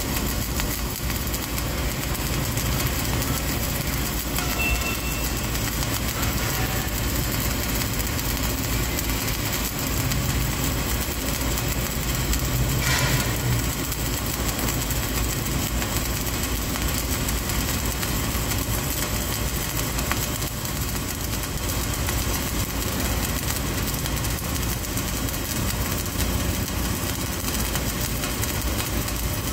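Flux-cored arc welding on steel plate, a vertical-up (3G) weld: the arc runs steadily with a dense crackling hiss, briefly louder about halfway through.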